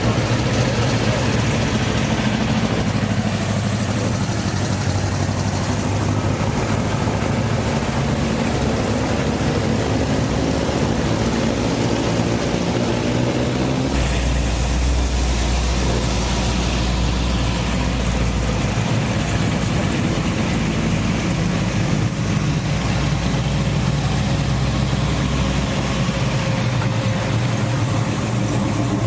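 Car engines idling and running steadily. About halfway through, a deeper, heavier engine rumble comes in close by and eases off a few seconds later.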